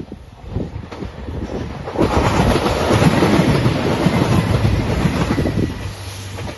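JR Nanpū limited express diesel train passing close by, loud for about four seconds from two seconds in, its wheels clattering rapidly over the rails. It fades near the end, leaving a low steady hum.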